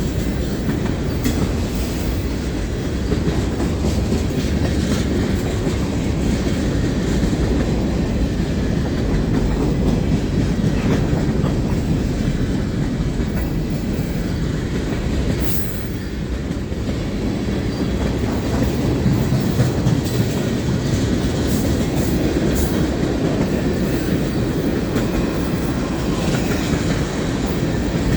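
Mixed freight train cars rolling past: a steady rumble of steel wheels on rail with occasional sharp clicks.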